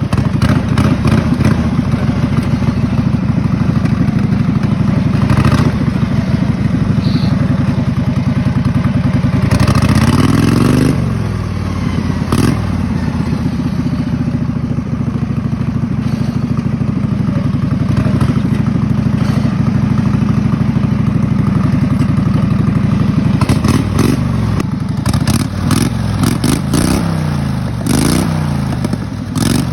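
Kohler Command V-twin engine on a racing lawn mower running under way, its pitch rising and falling as it is revved, once sharply about ten seconds in and several times near the end, with clattering knocks from the mower over the engine.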